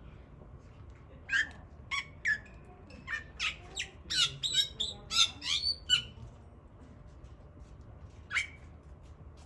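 A bird giving a quick run of short, sharp hiccup-like calls, about a dozen in a few seconds, then a single call near the end.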